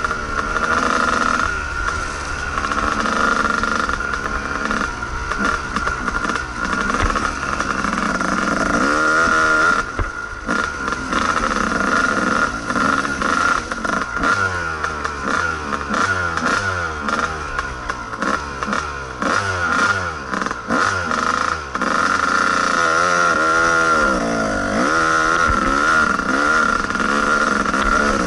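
Kawasaki KDX220 two-stroke single-cylinder dirt bike engine revving up and down over and over while riding a rough trail, its pitch rising and falling with each twist of the throttle and gear change.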